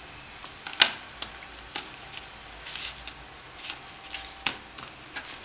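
Sharp clicks and taps of small iPhone 4 replacement parts (screen assembly and back panel) being handled and set down on a paper-covered table, with a brief rustle. The loudest click comes just under a second in, and a few lighter taps follow.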